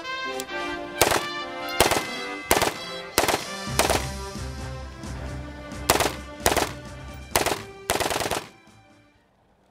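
PVAR rifle firing about ten quick single shots, roughly one every 0.7 seconds with a two-second pause midway, over background music. The sound fades out about a second before the end.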